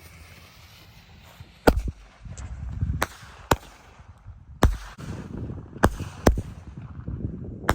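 Consumer fireworks going off: six or seven sharp bangs at uneven intervals, with a low rumble between them.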